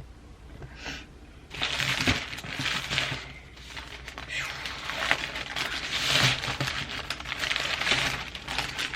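Paper sandwich wrapper crinkling and rustling as the sandwich is handled, starting about a second and a half in and running in uneven bursts.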